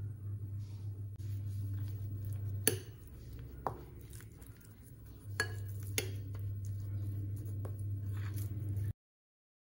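A spoon mixing flour into minced fish in a glass bowl: soft scraping with several sharp clinks of the spoon against the glass, over a low steady hum. The sound cuts off abruptly near the end.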